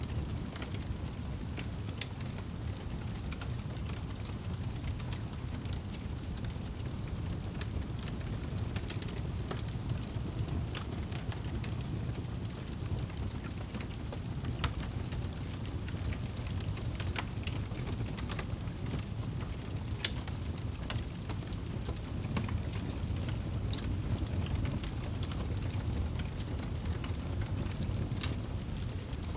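Wood fire crackling in a fireplace: irregular sharp pops and snaps over a steady low rumble of the burning flames, with stronger pops about two seconds in and near the middle.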